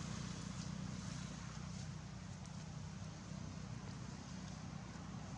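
A steady low hum, like a motor or engine running, under an even background hiss.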